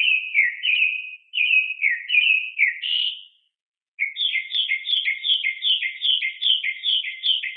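Mockingbird singing: phrases of repeated slurred whistled notes, a short pause about three seconds in, then a quicker run of repeated notes, about three a second.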